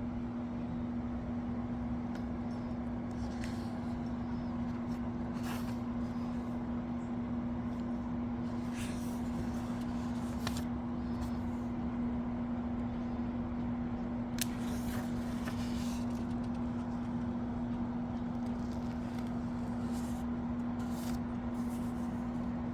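A steady electrical-sounding hum with a constant low pitch, over a background of noise, broken here and there by short soft rustles and clicks.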